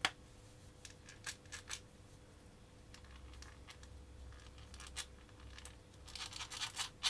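Hard plastic parts of a 1/8-scale RC car differential housing being handled and fitted together by hand: a sharp click, then scattered light clicks and taps, and a quick run of rattling clicks near the end.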